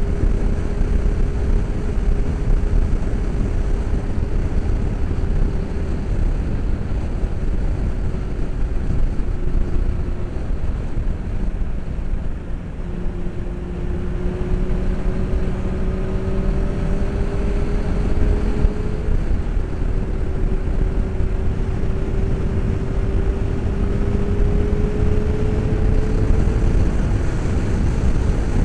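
Heavy wind rumble of a motorcycle ride heard from inside the helmet, over the faint note of a Honda CBR600's inline-four engine. The engine note climbs slowly, drops back twice and climbs again, then fades near the end.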